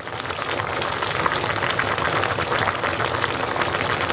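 Kimchi jjim (aged kimchi braised with pork shoulder in broth) bubbling in a pot, a dense crackle of many small pops that fades in at the start and then stays steady.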